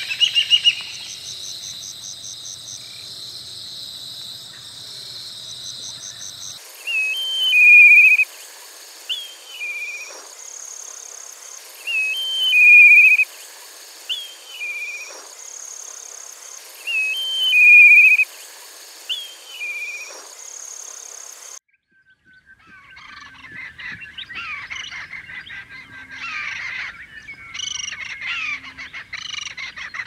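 Three raptor call recordings in turn. First, the tail of a Whistling Kite's whistled call over a steady high insect drone. Then, after about seven seconds, a Black Kite's thin whistles, each a quick upward flick and then a wavering held note, repeated every few seconds and loudest of all. Last, a Brown Falcon's rapid, dense cackling chatter.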